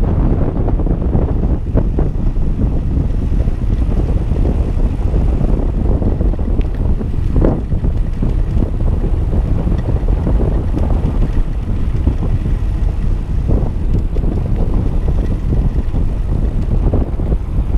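Wind buffeting the microphone of a camera carried on a moving bicycle: a loud, steady low rumble, with a few faint knocks.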